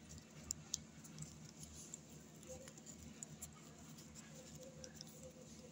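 Faint rustling and crinkling of a sheet of white paper being folded and tucked by hand, with two sharp crackles about half a second in.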